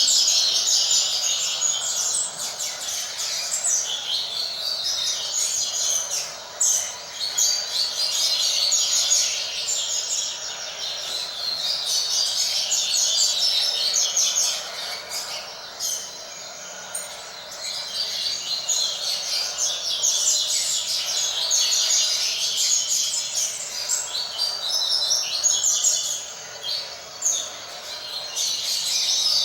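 Double-collared seedeater (coleiro) song: rapid, high twittering phrases a few seconds long, repeated with short pauses between them.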